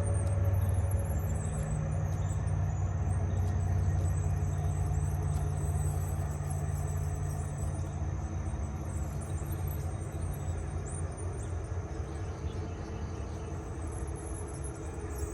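Train passing with a steady low rumble of engine and wheels that fades after about ten seconds.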